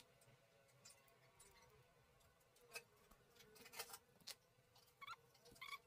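Faint, irregular clicks and snaps of side cutters and small hand tools biting into and breaking away the molded plastic casing of an ultrasonic dental scaler handpiece, more of them in the second half, the last two with a brief metallic ring.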